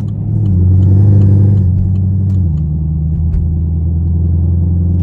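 Straight-piped Chevrolet Camaro SS V8 heard from inside the cabin, driving in traffic: the revs rise briefly about half a second in and drop back about two and a half seconds in, then settle to a steady low drone.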